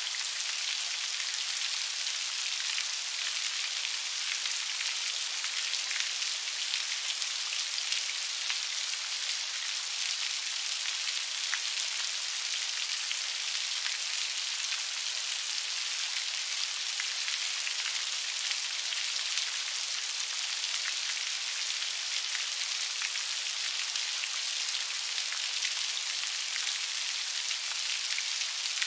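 Steady rain falling, with fine patter of many small drops hitting a surface and a constant high hiss.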